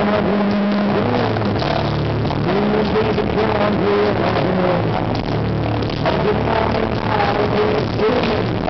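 A rock band playing loudly live: electric guitars, bass and drums.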